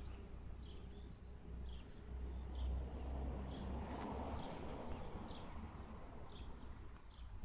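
Wind rumbling on the microphone, with a bird chirping in short high notes about every half second. A brief rustle of handling near the middle.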